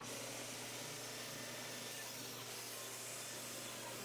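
Band saw running steadily: an even hiss over a constant low hum.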